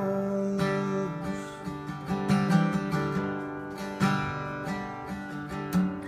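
Acoustic guitar strummed, its chords ringing between sung lines.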